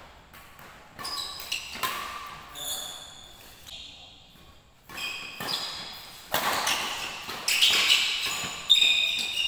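Badminton rally: rackets striking the shuttlecock in a series of sharp hits about a second apart, echoing in a large hall, with a pause near the middle. Short high squeaks, typical of court shoes on the floor, come between the hits.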